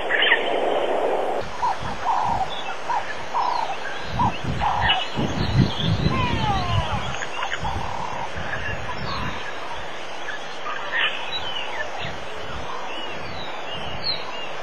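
Several wild birds calling over one another: a run of short repeated notes, then many quick whistled glides rising and falling. A low rumble comes and goes in the middle.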